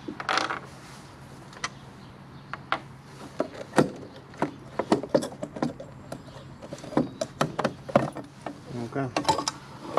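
Irregular clicks and knocks of hand tools on a scooter's variator cover as its bolts are undone.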